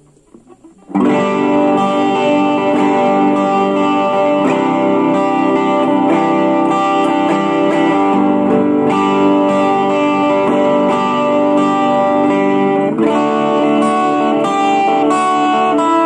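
Electric guitar played through a Blackstar Fly 3 mini guitar amp. After a faint hum, ringing chords and notes start about a second in, and a new chord is struck about thirteen seconds in.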